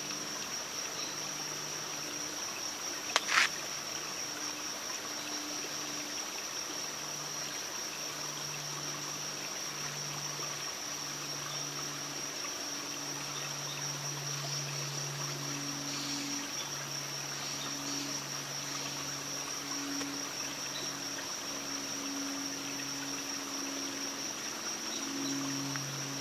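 Forest ambience: a steady high-pitched insect drone over an even hiss, with low notes that come and go. A single short, sharp sound comes about three seconds in.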